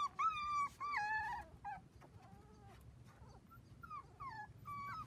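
A four-week-old dachshund puppy crying in a run of short, high-pitched whines. The whines are loudest in the first second and a half, then fainter and shorter.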